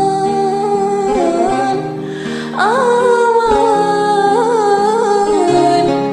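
A woman singing an Arabic song in long, wavering held notes over an instrumental accompaniment. A new phrase begins with a rising slide about two and a half seconds in.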